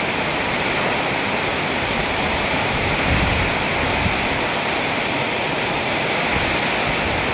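Heavy rain falling in a steady downpour, with wind buffeting the microphone.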